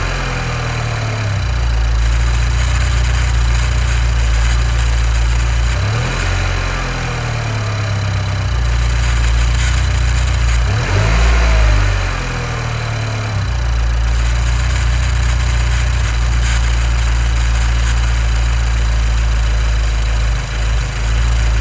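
The 2015 Nissan Juke Nismo RS's turbocharged 1.6-litre four-cylinder idles, blipped briefly about six and eleven seconds in. Over the idle runs a static-like noise that the owner first took for a vacuum leak and now takes to be the known Juke timing chain issue.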